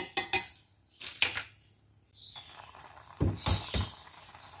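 A utensil clicking and scraping against a cooking pot as noodles are stirred, with three dull knocks a little after three seconds in.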